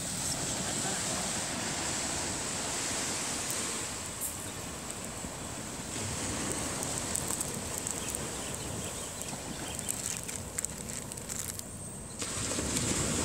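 Steady wash of ocean surf with wind on the microphone, with a few faint scattered clicks.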